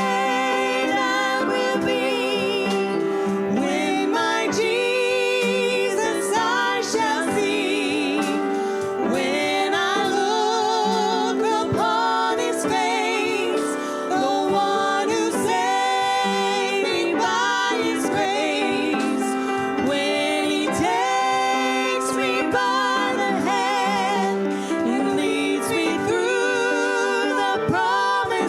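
Gospel-style worship song: singing with a strong vibrato over steady instrumental accompaniment.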